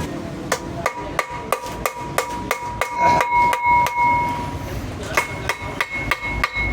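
Hammer blows on the refrigerator's sheet-metal body, about three a second, each leaving a ringing metallic tone.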